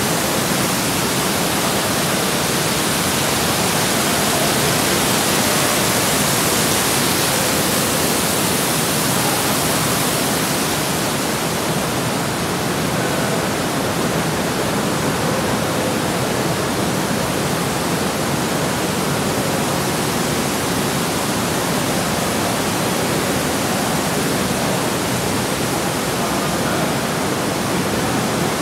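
Steady rush of water in a spa pool: stainless-steel cascade spouts pouring into the pool and jets churning the water. The rush is brighter for the first ten seconds or so, then a little duller.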